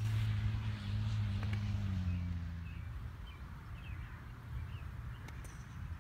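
A low, steady engine hum fades away over the first three seconds, while a few short bird chirps come through. There is one faint click near the end.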